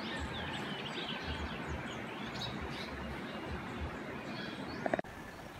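Wild birds chirping and calling in short scattered notes over a steady outdoor background hiss; the background drops suddenly to a quieter level about five seconds in.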